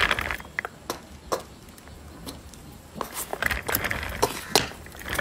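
Heeled sandals clicking on a concrete floor as a woman walks: a few scattered heel strikes, then a quicker run of clacks in the second half.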